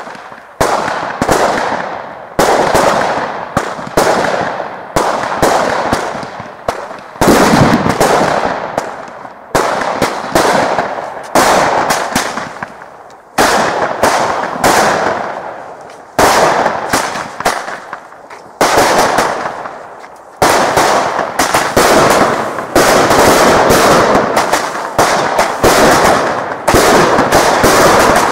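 Fireworks going off in quick succession: a sharp bang about once a second, each followed by crackling, the crackle thickening into a near-continuous rattle in the last third.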